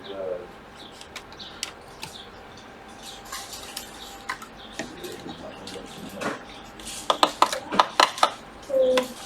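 Light clicks and clatter of small hard objects, such as repair tools and phone parts, being handled on a workbench, scattered at first, then a quick run of clicks about seven seconds in.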